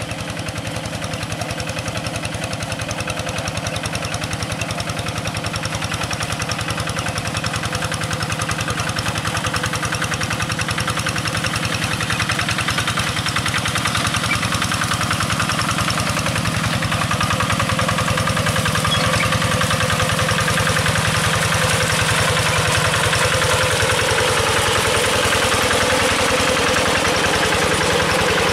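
Quick G1000 two-wheel hand tractor's single-cylinder diesel engine running steadily under load as it tills a flooded rice paddy, with a fast even chugging. It grows louder in the second half as it comes close.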